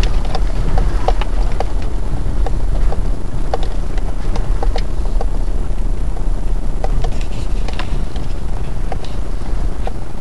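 Inside an off-road vehicle driving a muddy, rutted track: a steady low engine and tyre rumble with irregular clicks and knocks through it.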